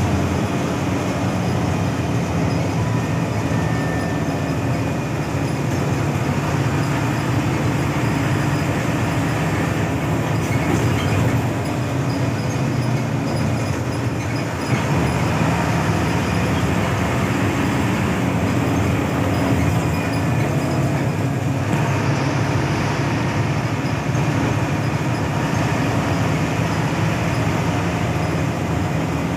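Hino AK8 front-engined bus running at road speed, heard from inside the cabin: a steady low engine drone mixed with constant tyre and road noise.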